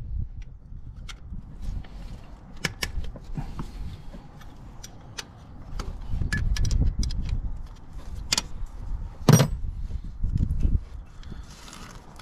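Metal hand tools and engine parts clicking and clinking as they are handled, over a rumble of handling noise. A louder knock comes about nine seconds in.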